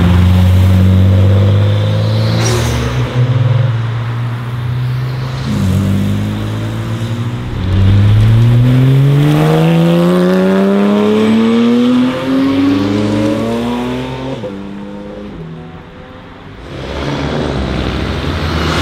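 Sports-car engines passing one after another. A modified Nissan Skyline coupé runs with a deep, steady engine note. Then a Porsche 997 GT3 RS accelerates hard past, its pitch rising steeply, and near the end an Audi R8 approaches under power.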